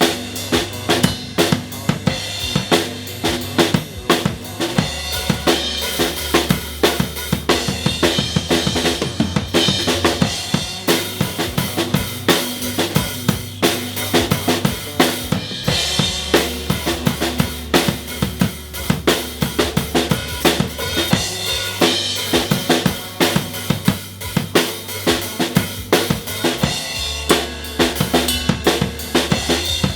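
Drum kit played fast and hard, with steady kick, snare and cymbal hits, to a rock backing track whose sustained bass notes run underneath.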